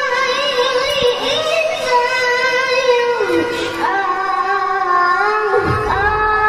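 A young boy's high-pitched voice reciting the Qur'an in the melodic tilawah style: long held notes with ornamented wavering turns, the pitch dropping about three seconds in and climbing back up in steps near the end.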